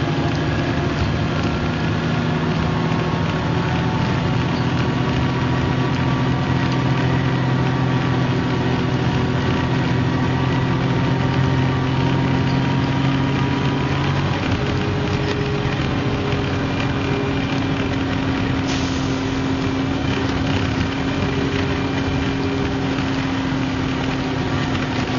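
Engine of an MCW Metrobus double-decker bus running under way, heard on board as a steady drone whose pitch climbs slowly. The engine note changes about halfway through, then runs on steadily.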